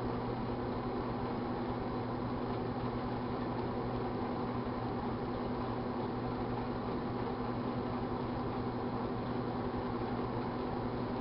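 1978 GE Dual Wave microwave oven running, heating a glass of Pepsi: a steady hum with fan noise.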